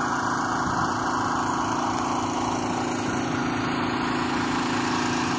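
A small engine running steadily at a constant speed, a continuous even hum.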